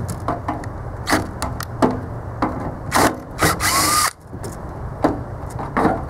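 Screw gun with a 5/16 nut-driver bit backing screws out of the air handler's sheet-metal blower panel: short runs of the motor with clicks and metal rattles, and a rising whine a little before four seconds as it spins up.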